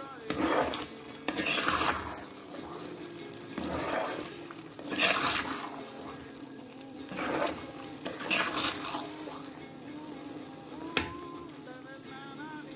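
Flat metal spatula stirring and scraping thick apple halwa around a black iron kadai, with the ghee in it sizzling; the stirring strokes come as swishing surges about every one to two seconds. There is one sharp click near the end.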